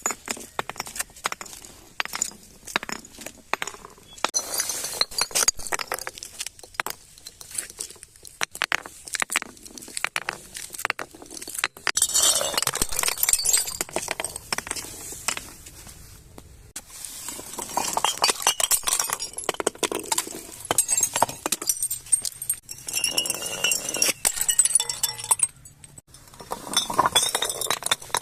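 Glass bottles being broken and crushed: many sharp clinks and cracks, with stretches of shards crunching and tinkling together.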